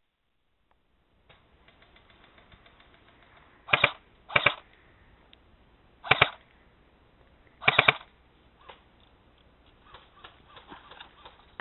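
M16-style airsoft rifle firing four short bursts of rapid clicking shots: two close together about four seconds in, one around six seconds and one near eight seconds. A few fainter clicks follow near the end.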